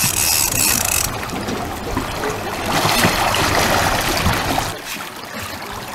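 Water splashing as a hooked white sturgeon thrashes at the surface beside the boat, loudest in the middle seconds. A brief high hiss opens it.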